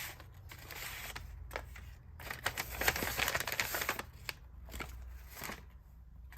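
Paper packaging rustling and crinkling as a parcel is unwrapped by hand, in several bouts, the longest and loudest about halfway through.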